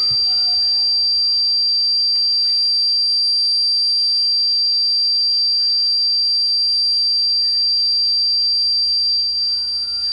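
A steady, loud high-pitched tone held at one pitch, with a faint low hum beneath it.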